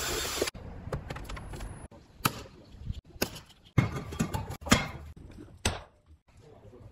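A cordless drill running for about half a second at the start, then irregular sharp knocks and taps, about eight of them, as metal vent parts are handled and fitted into a cut-out in the container wall.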